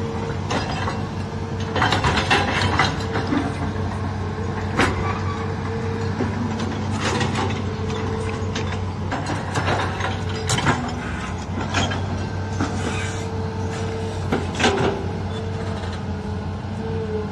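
Hitachi hydraulic crawler excavator digging: its diesel engine runs steadily under load, a whine comes and goes as the arm works, and the bucket knocks and scrapes against hard, rocky ground every second or two.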